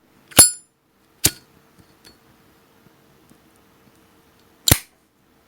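Zippo windproof lighter: the lid flicked open with a metallic ring, a second sharp click about a second later, and the lid snapped shut near the end.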